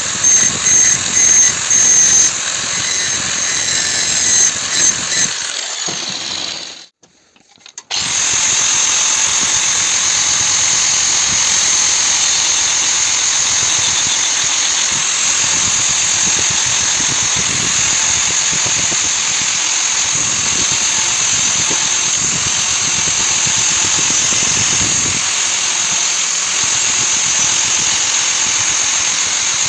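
Power grinder grinding saw-blade steel, a high, steady whine. For the first few seconds it comes in pulses as the steel is pressed on and lifted off; it cuts out briefly about seven seconds in, then runs steadily.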